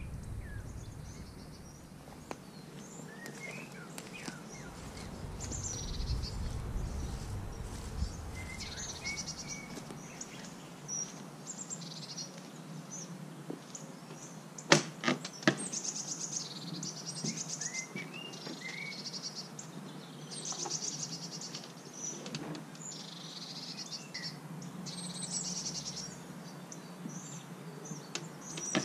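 Small songbirds chirping and singing in short phrases throughout, over a low wind rumble in the first several seconds. About fifteen seconds in come a few sharp clicks and knocks from the cabin's wooden door latch being worked.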